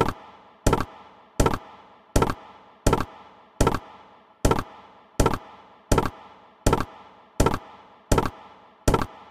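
Video slot game sound effects: a sharp thunk repeating evenly about every three-quarters of a second as the reels spin and land on autoplay.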